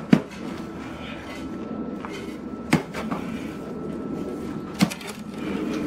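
Pickaxe striking a tree stump and its roots: three sharp blows about two seconds apart.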